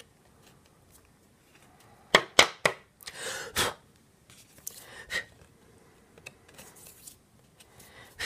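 Paper handling: a few sharp taps about two seconds in, then a short rustle and softer crinkles as a cardstock card is tapped to shake loose embossing powder into a crinkled paper coffee filter.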